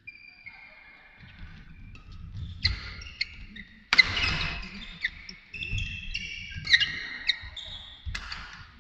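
Badminton doubles rally: sharp racket strikes on the shuttlecock about four times, with sneakers squeaking on the court mat and thudding footfalls between the shots.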